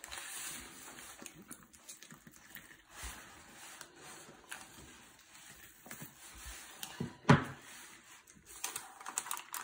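Burbot skin being pulled off with pliers on crumpled brown paper: faint rustling and crinkling of the paper with small scattered clicks, and one louder sudden sound about seven seconds in.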